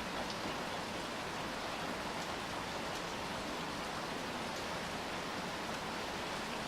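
Steady rain falling: an even hiss with faint, scattered ticks of individual drops.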